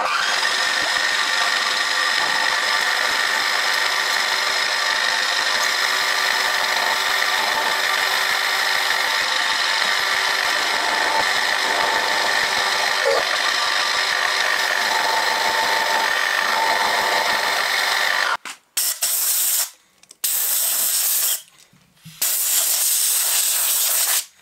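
Milling machine spindle running with an end mill skimming the mill scale off two small mild steel blocks held together in the vise, taking a first cut to make a reference surface: a steady whine over cutting hiss. The sound breaks off abruptly and comes back a few times near the end.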